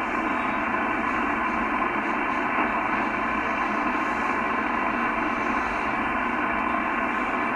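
HF transceiver receiving on the 11-metre band, its speaker giving out a steady hiss of band noise with no highs and no deep lows.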